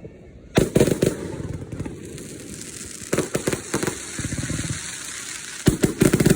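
Fireworks going off in three volleys of rapid crackling pops, about a second in, a little past three seconds, and near the end, with a hiss between the volleys.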